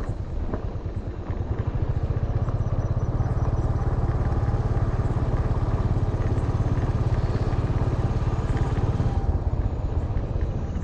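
Motor vehicle engine running steadily, with a rapid, even pulse of firing strokes; it eases off slightly near the end.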